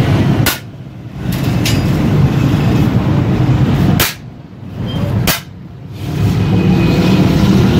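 A steady low mechanical hum, broken by sharp clicks with sudden short drops in level about half a second in and again between about four and six seconds in.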